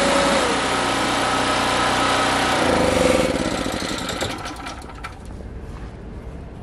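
Predator 3500 portable generator's small single-cylinder engine running, its pitch dropping just after the start. About three seconds in it gives a brief louder surge, then winds down and dies away over the next two seconds, leaving only faint clicking.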